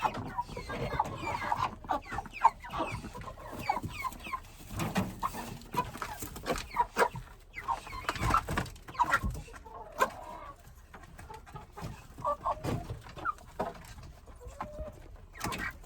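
Young broiler chickens clucking and peeping at their feed, many short calls overlapping, with brief clicks and knocks among them.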